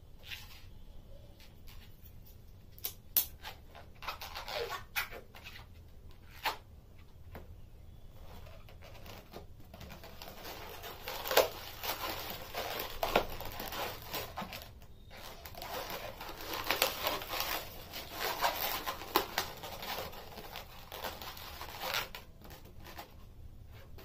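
Latex modelling balloons being handled and twisted by hand: irregular rubbing and squeaking in bursts, with a few sharp clicks, sparse at first and busy through most of the second half.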